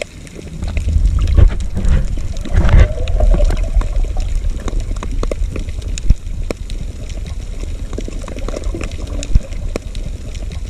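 Water heard from underwater by the camera: a muffled sloshing rumble with scattered clicks and a louder gurgle about two and a half seconds in.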